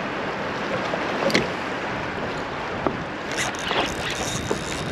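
Steady wind and lapping water around a small boat, with a few light clicks about three to four seconds in as a spinning reel is cranked.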